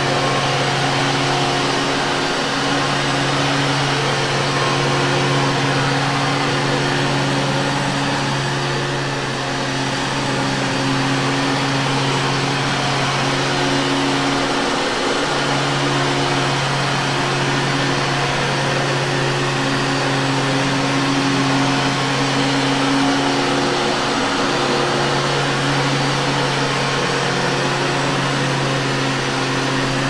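Vintage Hoover Caddy upright vacuum cleaner running steadily as it is pushed back and forth over carpet: a constant motor hum over a rush of air. The hum wavers briefly a few times.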